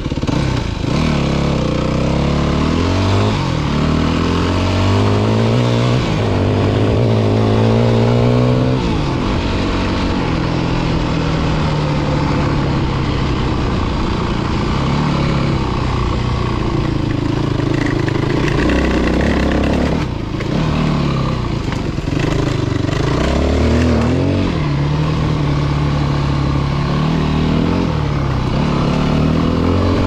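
Yamaha WR250F dirt bike's four-stroke single-cylinder engine being ridden, its pitch rising and falling over and over as the throttle opens and closes. There is a brief drop in loudness about two-thirds of the way through.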